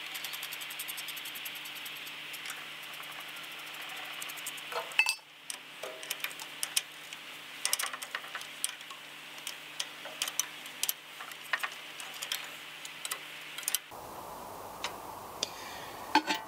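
Irregular light metallic clicks and clinks of a hand wrench and steel bolts as bolts are refitted on the tractor, over a faint steady hum.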